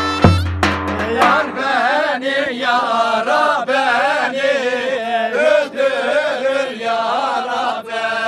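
A group of men singing a folk bar tune together in unison, sung by mouth (ağız barı) to keep the line dance going. In the first second a droning wind instrument and drum beats cut off as the singing takes over.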